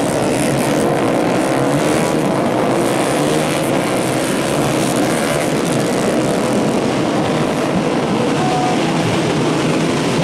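A pack of 150cc four-stroke underbone race motorcycles running hard, many engine notes overlapping and wavering in pitch as they rev.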